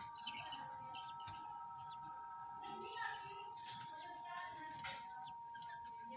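A flock of caged parrots chirping and chattering, many short overlapping calls with no pause, over a thin steady tone.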